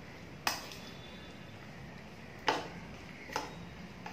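Metal spoon clinking against a small stainless steel bowl while stirring prawns in a thick mustard paste: four sharp clinks, unevenly spaced, the last one faint.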